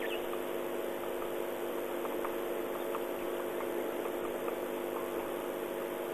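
A steady low hum of several level pitches that does not change, with a few faint short ticks above it.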